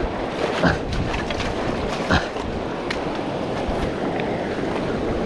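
Steady rush of fast whitewater river rapids, with wind buffeting the microphone. Two short knocks stand out, about half a second in and again about two seconds in.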